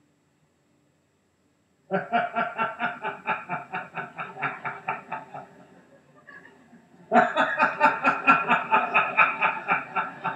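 Group of people laughing in quick, even pulses, in two rounds: the first starts about two seconds in and dies away, the second starts about seven seconds in and is louder.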